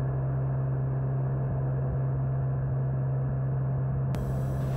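Steady drone of a Cirrus SR20's piston engine and propeller heard inside the cabin in a climb, with a strong, even low hum.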